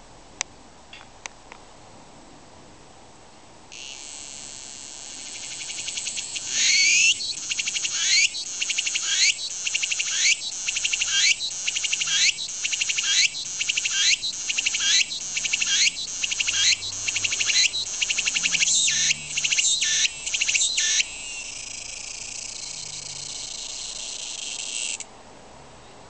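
A tsukutsuku-bōshi cicada (Meimuna opalifera) singing its full song: a buzz builds up, then the 'tsuku-tsuku-bōshi' phrase repeats about once a second with a rising sweep each time, quickening toward the end before a steady closing buzz that cuts off suddenly.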